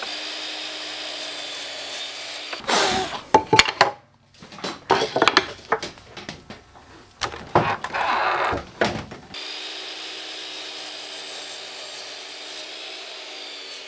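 Miter saw motor running with a steady whine, broken in the middle by several seconds of loud, irregular knocks and rasping as maple and walnut boards are cut and handled at the saw. The whine returns and sags slightly near the end.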